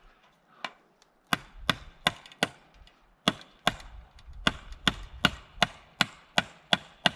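Fencing pliers used as a hammer, striking wood in quick, even blows about two or three a second, with a short pause partway through: driving a fence staple into a wooden post.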